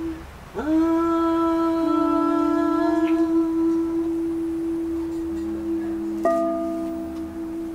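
Touch-screen synthesizer playing long held notes. One note slides up into pitch about half a second in, and more notes join beneath it later, overlapping into a chord.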